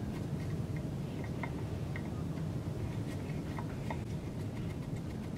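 Light clicking and ticking as small metal parts and sensor wiring are handled on the web guide's steel base plate, a few ticks a second, over a steady low hum.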